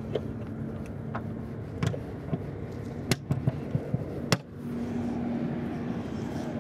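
A scatter of sharp clicks and knocks, bunched together in the middle, over a steady low hum.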